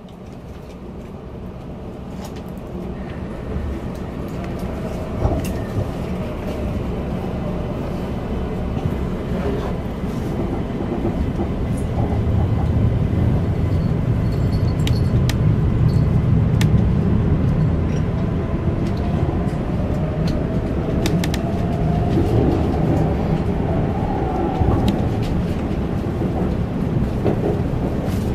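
Keisei Skyliner train pulling away and gathering speed, heard on board. The running noise grows steadily louder, with a faint motor whine rising in pitch and scattered sharp clicks from the wheels and track.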